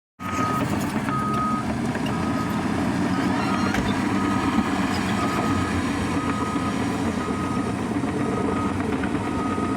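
Heavy earthmoving machine's engine running steadily while its reversing alarm beeps, about once a second.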